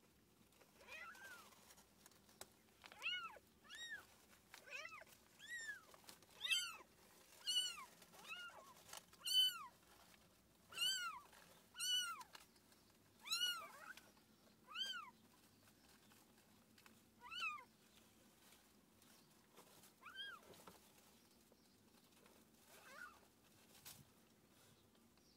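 Newborn kitten mewing: a run of short, high-pitched mews, each rising and then falling in pitch, about one a second, loudest in the middle and thinning out toward the end.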